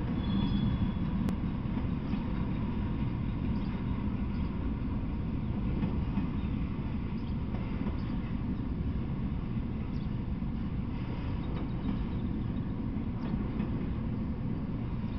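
Freight train of enclosed autorack cars rolling past, a steady low rumble of steel wheels on rail with a few faint clicks.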